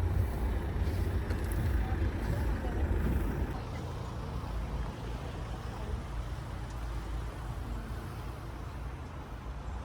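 Low, steady road and engine rumble of a moving vehicle heard from inside, a little louder for the first few seconds and then easing off.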